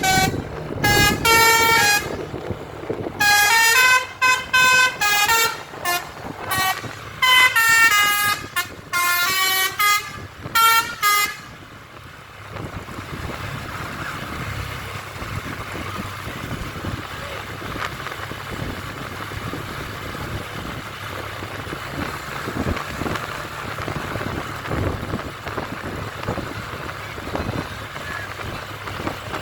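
Indonesian bus telolet horn playing quick runs of changing notes in a series of short bursts, stopping about eleven seconds in. After that only a steady, quieter engine and road noise remains.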